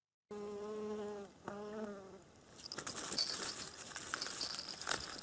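A flying insect buzzing close by with a steady hum for about two seconds, briefly interrupted partway. It gives way to a crackling rustle of dry reed stalks and handling noise, with scattered clicks.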